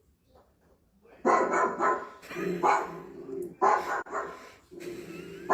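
A dog barking, starting about a second in and repeating about once a second, five or so barks.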